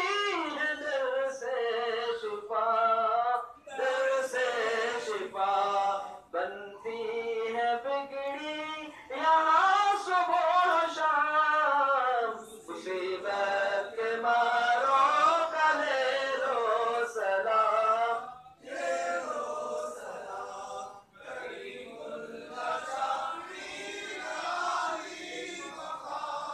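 Group of men's voices chanting a devotional recitation together without instruments, in long sung phrases whose pitch rises and falls, with brief breaks between phrases.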